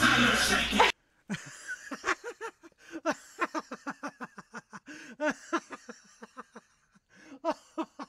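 Hip-hop music cuts off abruptly about a second in. A baby's giggling laughter follows as quick, short bursts, several a second, with brief pauses.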